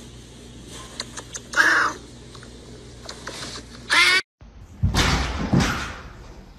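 Orange tabby cat letting out a short, harsh scream with a wavering pitch about four seconds in, while being held and kissed. A loud noisy stretch with no clear tone follows.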